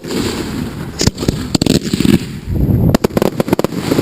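Aerial fireworks shells going off: single sharp bangs about a second in and again shortly after, then a quick flurry of cracks about three seconds in, over a steady rushing background.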